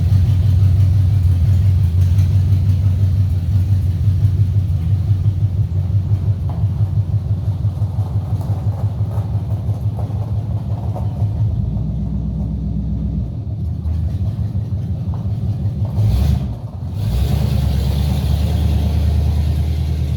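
Pickup truck engine idling with a steady, even low pulse, running on freshly filled oil. Its sound changes slightly about halfway through and dips briefly about three-quarters of the way in.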